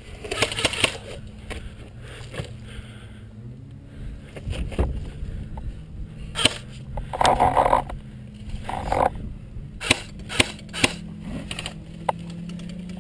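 Airsoft rifle firing in several short bursts, among scattered sharp clicks and cracks.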